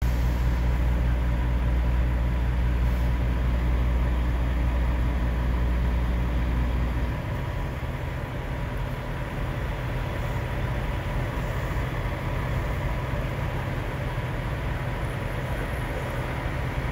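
Idling diesel semi-truck engines, a steady low rumble and hum; the deepest part of the rumble drops away about seven seconds in.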